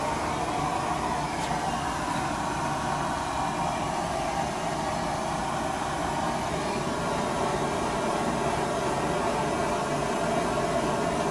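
Blowtorch flame running with a steady hiss, held on an oil painting to work the paint.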